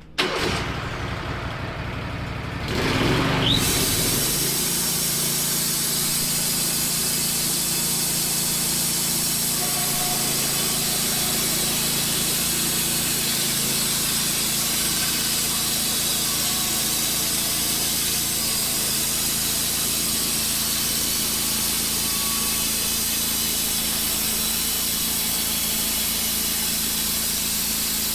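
Wood-Mizer LT15 band sawmill running, its blade sawing along a black cherry beam to flatten it. The sound starts suddenly, gets louder about three seconds in, then runs steadily.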